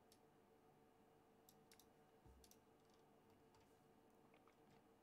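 Near silence, with a scattering of faint computer mouse clicks.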